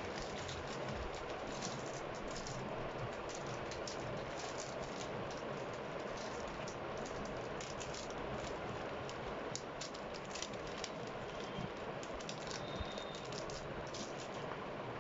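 Steady background hiss with many light, irregular clicks and ticks scattered through it.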